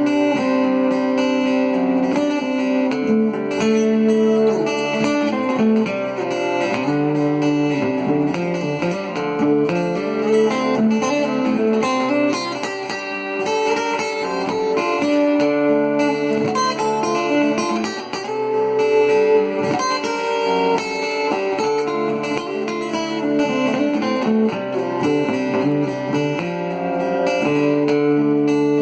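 Cort GA5F-MD acoustic-electric guitar played through its Fishman pickup with digital reverb and compressor: a looped chord part with picked notes played over it.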